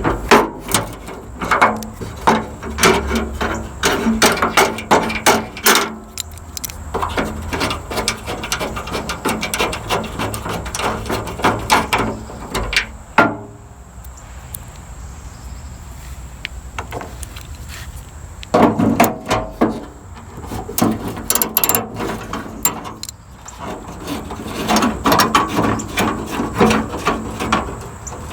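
Bursts of rapid clicking and scraping from hand-tool work on a pickup's tailgate handle fastenings, in four spells with short pauses between.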